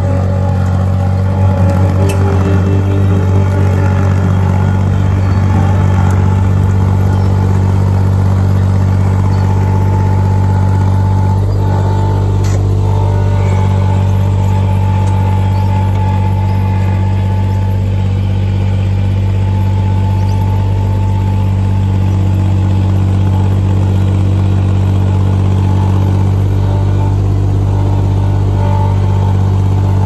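Cormidi C1500 tracked mini skid steer's engine running steadily as the machine drives a large hardwood log in its grapple over to a dump trailer.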